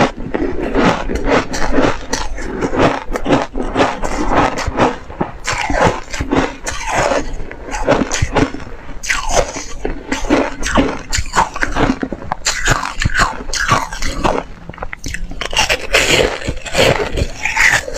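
Close-miked crunching of hard frozen ice being bitten and chewed: a dense run of sharp crunches, one after another.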